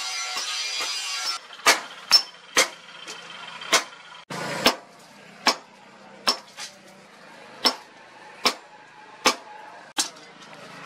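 Background music that cuts off about a second in. Then a hand hammer strikes a red-hot leaf-spring blank on an anvil: about a dozen sharp, ringing blows, roughly one a second.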